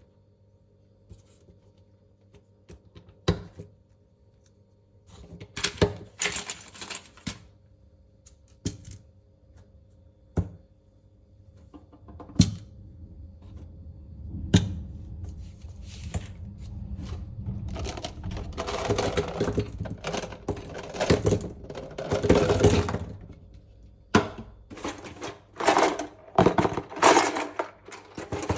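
Velvet-covered sticks handled and sorted by hand: single sharp taps and clicks now and then, with longer spells of rustling and rapid tapping.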